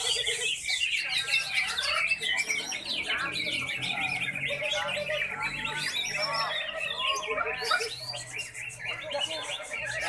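Several caged green leafbirds (cucak ijo) singing at once: rapid, overlapping warbled phrases and chirps with no break.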